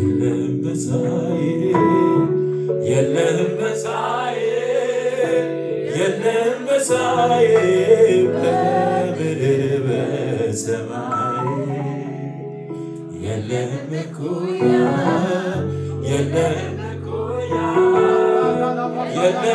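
Live Amharic gospel worship song: a man singing into a microphone over sustained keyboard chords, with the congregation singing along.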